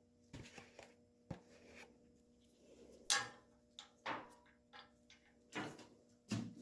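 A few scattered light knocks and clicks from handling a small steel part and tools in the shop, about six over several seconds, the loudest about three seconds in.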